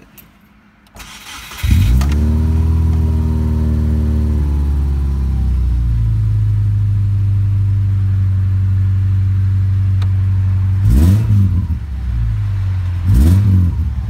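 2000 Subaru Outback's boxer engine cranked and started: it catches about two seconds in, runs at a fast idle that falls and settles into a steady idle, then is blipped twice near the end. The owner suspects sticking lifters behind a clicking sound in this 280,000-mile engine.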